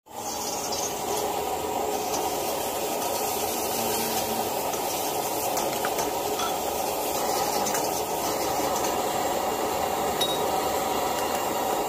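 Stir-frying noodles and vegetables in a wok over a gas wok burner: a steady burner roar and sizzle, with the metal ladle scraping and knocking against the wok.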